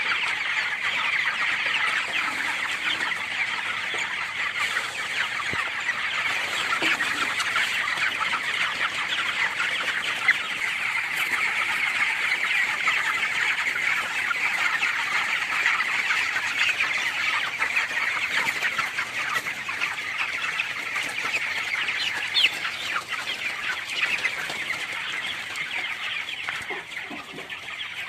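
A large flock of young poultry chickens, about twenty days old, cheeping and clucking together in a dense, continuous chorus, with a couple of brief sharp clicks.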